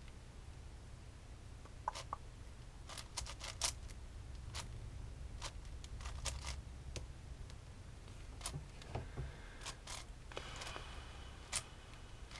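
Plastic Rubik's cube layers being turned by hand: irregular clicks and clacks as slices snap into place, with a short run of scraping turns about ten seconds in.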